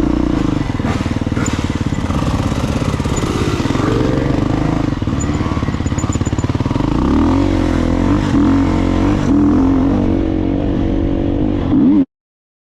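Dirt bike engine running close by, revved up and down several times. The sound cuts off abruptly near the end.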